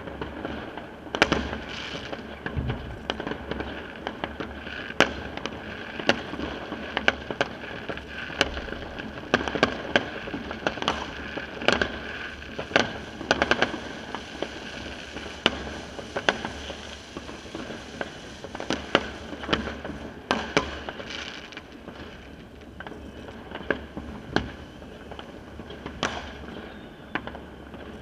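Fireworks and firecrackers going off all around: irregular bangs and cracks, with a quick run of cracks about twelve to fourteen seconds in.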